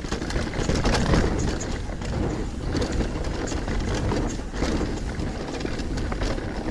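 Mountain bike being ridden on a dirt trail: a steady rumble of tyres with many small clicks and rattles.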